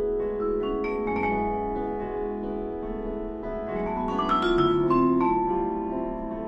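Instrumental background music of slow, ringing notes and chords, with a run of new notes about four seconds in.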